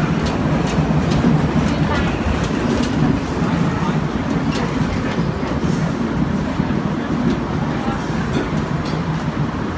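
Heritage electric trolley car running along its track, heard from inside the car: a steady low rumble from the wheels and running gear with scattered light clicks and rattles.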